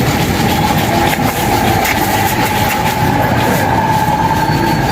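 An electric machine in a blacksmith's workshop runs steadily: a loud, even mechanical noise with a steady whine over a low hum.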